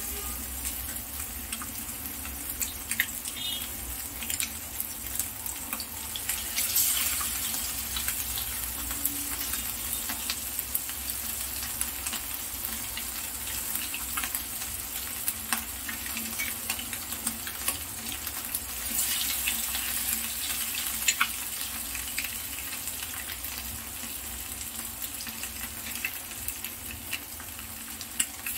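Oil sizzling and crackling steadily around spice-coated rohu fish steaks shallow-frying in a nonstick pan. The sizzle swells louder twice, about a quarter of the way in and again a little past halfway, as fresh pieces are laid into the hot oil.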